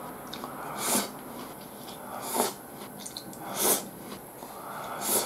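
A man breathing heavily through his nose while chewing, one short hissing breath about every second and a half, with faint small clicks of eating in between.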